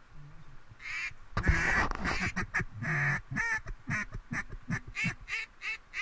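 Haydel's H2 Cajun Cutter acrylic double-reed mallard duck call blown as a series of hen-mallard quacks: a few longer drawn-out quacks, then a run of short quacks about two or three a second.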